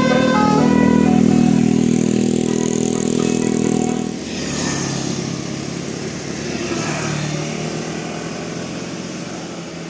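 The last notes of a bus's multi-tone telolet horn tune in the first half-second. Then a bus engine runs loud and steady for about four seconds and drops away suddenly as the bus goes by, leaving fainter passing traffic.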